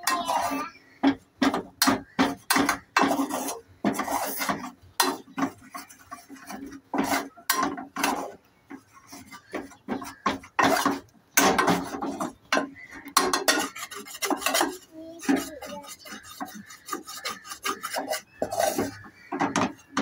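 A spoon scraping and stirring crumbly flour mix against the sides and bottom of an aluminium pan as it is dry-roasted, in quick irregular rasping strokes with a couple of short pauses.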